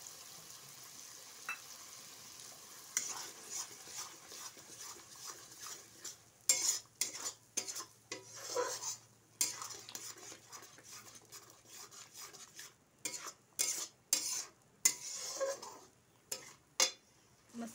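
Metal spatula stirring and scraping coconut paste and ground masala around a metal wok (kadhai) while it fries with a light sizzle. The scraping starts about three seconds in and comes in quick, irregular strokes.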